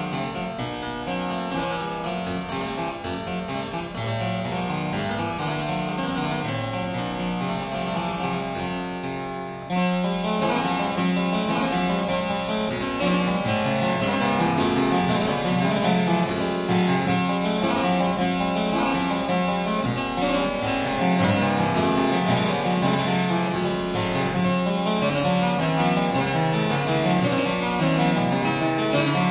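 Background music made of quick runs of pitched notes. It dips briefly about ten seconds in and comes back slightly louder.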